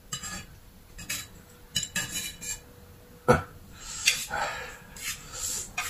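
Chopsticks clicking and scraping against plates and dishes, in scattered taps with one sharper knock a little over three seconds in.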